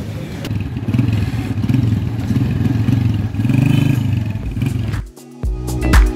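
Small motorcycle engine running and revving up and down. About five seconds in it gives way to music with a steady beat.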